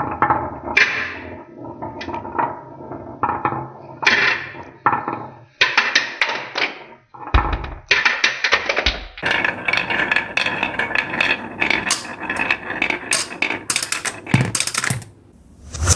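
Marbles clattering and rolling through a toy marble run: many rapid clicks and knocks, with several abrupt cuts from one stretch of track to the next.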